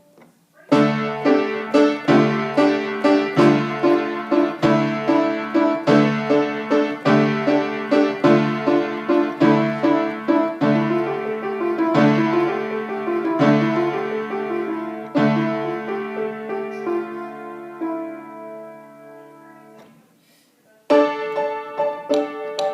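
Solo piano music: a steady, repeating low figure under a melody of struck notes. It dies away to near silence about 18 to 20 seconds in, then the playing starts again near the end.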